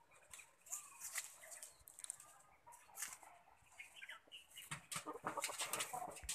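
Backyard chickens clucking faintly in short scattered calls. Near the end a run of close scratchy clicks and rustling is the loudest sound.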